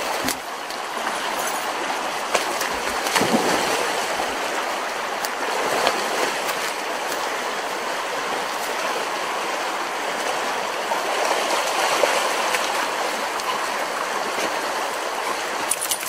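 Fast-flowing river rushing steadily.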